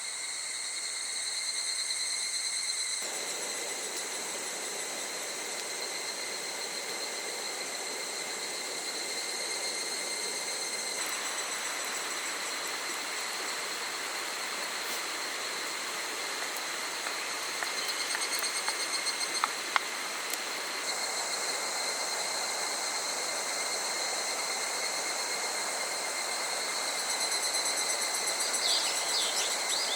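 Steady outdoor insect chorus of high, held trilling tones over an even rushing hiss that grows louder about three seconds in. A couple of sharp clicks come about two-thirds of the way through, and a short chirp near the end.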